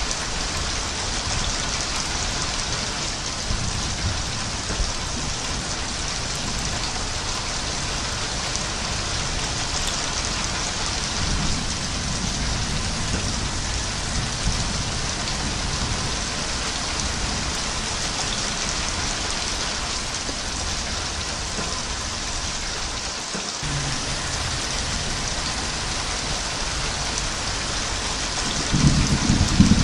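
Steady, heavy rain pouring down, with low rumbles of thunder, the loudest starting near the end.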